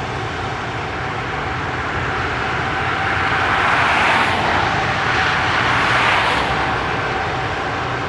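Heavy harvest machinery running steadily, with a hiss that swells up twice in the middle.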